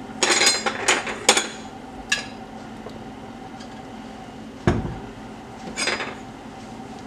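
A metal mesh strainer knocked and scraped against the rim of a stainless steel stockpot, knocking out the last of the strained chile sauce: a quick run of metallic clinks in the first second and a half, then one more about two seconds in. A dull thump comes just before the five-second mark, and a last short clatter follows about a second later.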